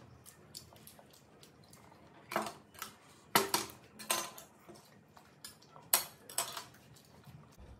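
Chopsticks and a spoon clinking and scraping against ceramic bowls and plates as food is served, a handful of separate clinks.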